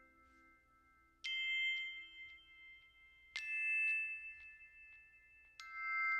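Background music: three bell-like chime notes, about two seconds apart, each struck and left ringing.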